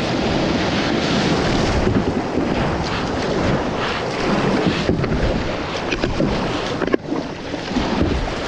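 Ocean surf breaking and water rushing around a kayak as it is paddled out through the waves, with wind buffeting the microphone.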